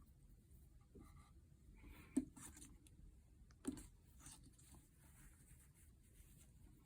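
Near silence with quiet handling of the mask fabric and pins, with two soft taps about two seconds and three and a half seconds in.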